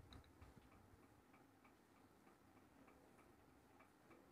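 Near silence: room tone with a faint, regular ticking, about three ticks a second.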